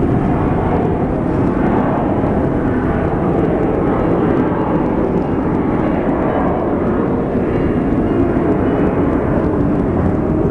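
Airplane engines droning loud and steady, like aircraft passing overhead, heard just after the words 'the song of the airplanes deafens'.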